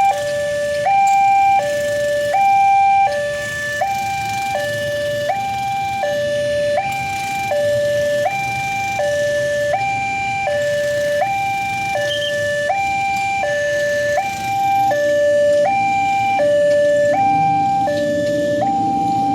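Railway level-crossing warning alarm sounding: an electronic two-tone signal alternating steadily between a higher and a lower note, about 0.7 s each. A low engine rumble comes in under it near the end.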